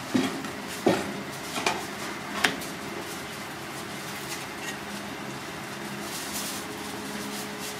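Large kitchen knife chopping through catfish onto a cutting board: four sharp knocks in the first two and a half seconds, then only a steady background hum.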